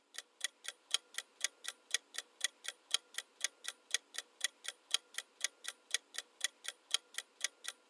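Ticking clock sound effect for a quiz countdown timer: an even tick-tock at about four ticks a second, alternating louder and softer ticks.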